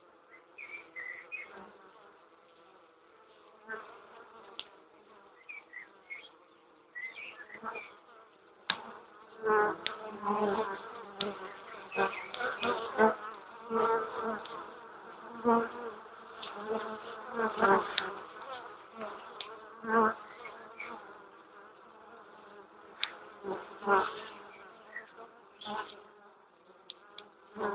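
Honeybee colony in a hollow tree trunk buzzing close to the microphone: a continuous hum with frequent sharp clicks and knocks, louder and busier through the middle.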